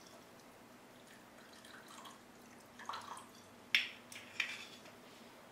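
Balsamic vinegar poured from a bottle into a glass bowl of oil and mustard, a faint liquid trickle. It is followed by three light clicks, the first about three seconds in.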